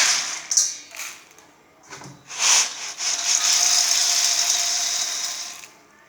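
Dry maize kernels rattling in a mortar: a few short rattles, then about three seconds of continuous pouring rattle that fades out near the end.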